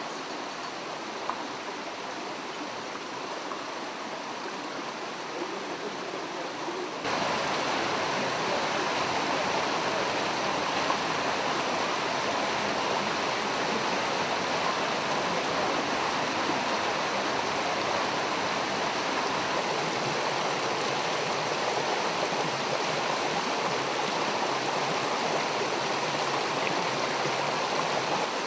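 Mountain stream running over rocks in a steady hiss of water, which steps up louder and fuller about seven seconds in.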